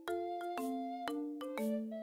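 Background music: a light tune of struck, bell-like mallet notes, a few notes a second, each ringing and fading.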